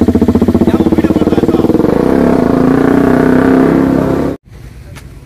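Motorcycle engine running under way, loud with a fast pulsing beat. It cuts off abruptly a little over four seconds in, leaving a much quieter background.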